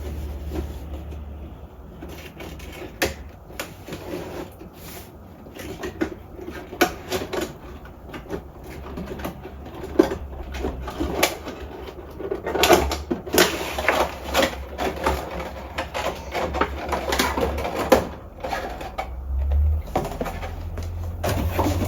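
Cardboard box and plastic packaging of a toy action figure being handled and opened: irregular clicks, knocks and rustling, busiest around the middle, over a steady low hum.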